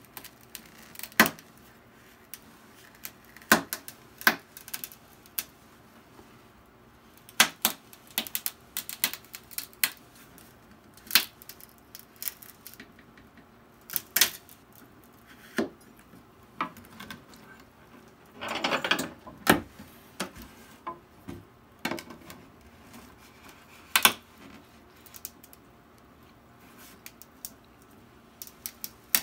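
Glued seam of a cello body cracking apart as a thin knife blade is worked between rib and plate: irregular sharp cracks and clicks, with a longer crackling burst about two-thirds of the way through.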